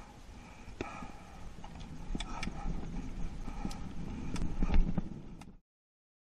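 Mountain bike riding on a dirt trail: a low rumble of tyres on the ground with scattered rattles and knocks, growing louder about four seconds in, then cutting off suddenly near the end.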